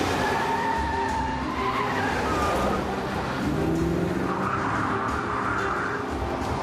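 Car engines revving with tyres squealing, as in a car chase, over background music.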